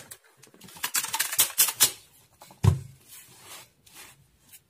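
Hands handling a cardboard shipping box: scratching and rustling at its packing tape and label, with a single dull thump a little under three seconds in.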